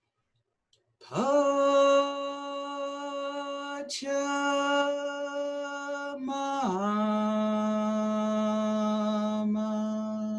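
A woman's voice chanting in long held notes, starting about a second in: two notes on the same pitch with a brief break between them, then a longer, lower note.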